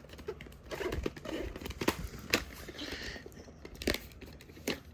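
Plastic packaging of a VHS tape being handled: crinkling and rustling, broken by several sharp clicks and taps.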